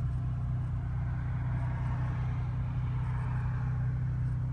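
Dodge Challenger idling steadily, its exhaust running without the mid muffler and rear resonator, giving a low, even exhaust note.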